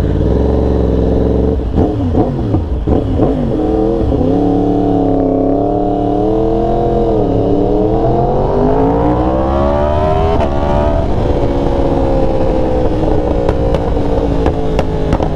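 2023 Yamaha R1's crossplane inline-four, running a tune and a Sprint air filter, under way on the road. Its pitch wavers with the throttle, climbs steadily as it pulls through a gear, drops sharply at an upshift about ten seconds in, then holds nearly steady.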